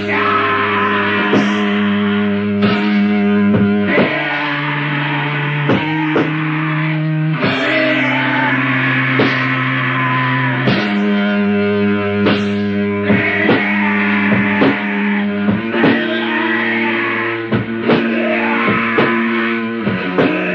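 Slow doom metal from a 1993 demo tape: electric guitar chords held for several seconds each and changing every few seconds, with steady drum hits.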